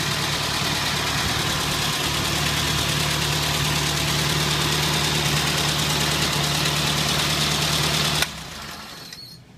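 1948 Farmall Cub's four-cylinder flathead engine idling steadily, freshly rebuilt and newly started, then shut off near the end, the sound cutting off suddenly.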